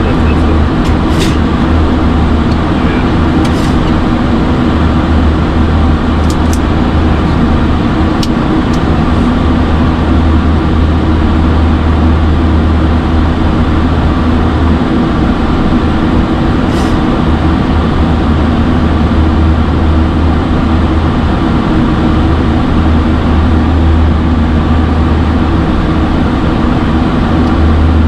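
Steady flight-deck noise of a Boeing 737-800 in flight: a loud, even rush with a low hum underneath.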